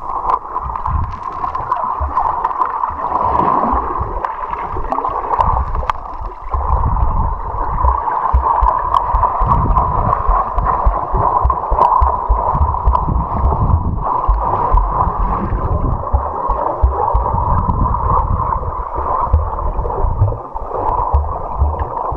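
Continuous gurgling and rushing of river water close to the microphone, muffled, with irregular low knocks and thuds of water moving against it.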